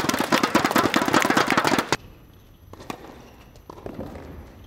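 Quick, dense clapping from a small group, cutting off abruptly about two seconds in. It is followed by a few faint, isolated knocks.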